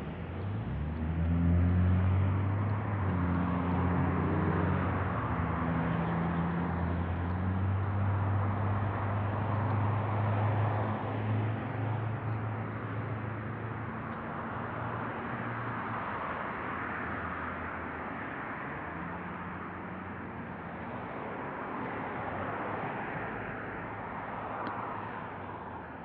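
Road traffic on a multi-lane street, cars passing one after another in swells of tyre and engine noise, with a low engine hum through the first half, picked up by the Snap G action camera's built-in microphone.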